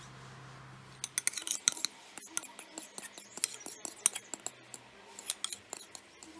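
A faint low hum, then from about a second in a quick, irregular run of sharp clicks and clinks, like small hard objects tapping against each other.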